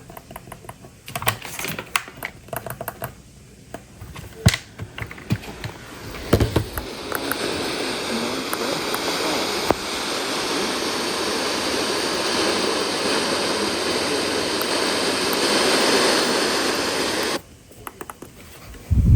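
Scattered clicks for about six seconds. Then a steady radio static hiss from a receiver tuned off a signal, which cuts off suddenly near the end. A single loud click follows.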